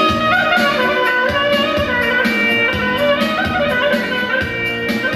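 Albanian folk dance music played live on a keyboard: a melody with bending, ornamented notes over a steady beat.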